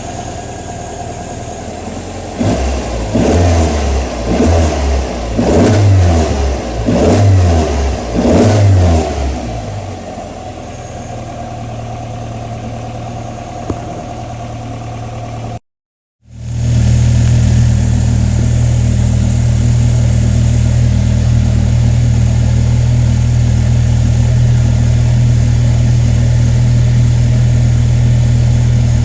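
Toyota AE86's 4A-G four-cylinder engine idling and revved in about five short blips, then, after a break, running steadily at a louder, even idle. The engine is being run to show abnormal noises.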